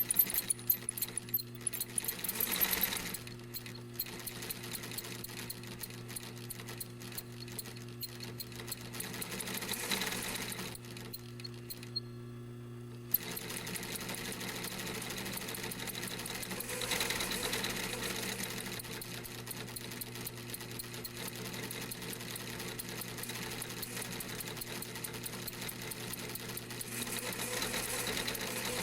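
Industrial sewing machine stitching in fast runs of rapid ticking over the steady hum of its motor. Near the middle the stitching stops for about two seconds while the motor keeps humming, then starts again with a click.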